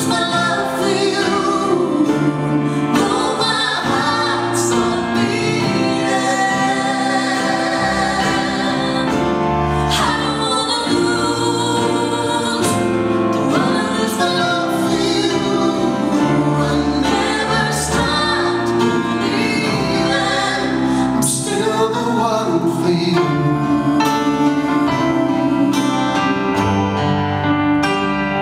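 Live acoustic folk-pop song: a woman singing lead with vocal harmony, over acoustic guitar, mandolin and stage piano, at a steady level throughout.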